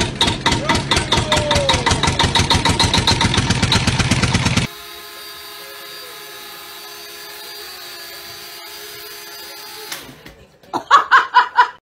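A loud, even clatter of about ten pulses a second, then, after a sudden cut, the steady whirring hum of a small indoor quadcopter drone's propellers for about five seconds. The hum stops with a knock about ten seconds in, and a few loud beats follow near the end.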